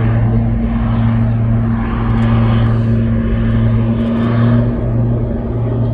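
OV-10 Bronco's twin Garrett T76 turboprop engines and propellers give a steady low drone as it flies overhead, with a second hum an octave above.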